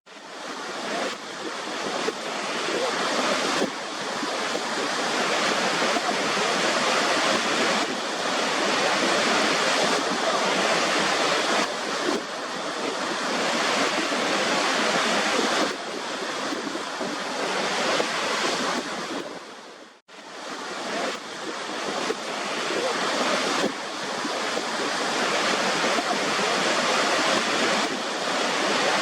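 Waterfall: water rushing in a steady, even wash of noise. It drops out sharply for an instant about two-thirds of the way through, then swells back up.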